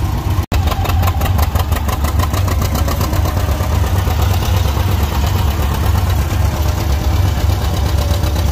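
Antique John Deere two-cylinder tractor engine chugging with a fast, even popping beat as it pulls a plow. The sound cuts out for an instant about half a second in.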